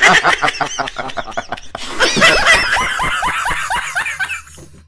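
People laughing: a run of quick, rapid laughs that dies away near the end.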